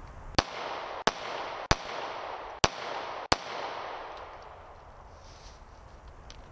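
Five pistol shots from a Taurus PT111 G2 9 mm handgun, fired at an uneven pace a little under a second apart, with the report echoing and dying away after the last shot.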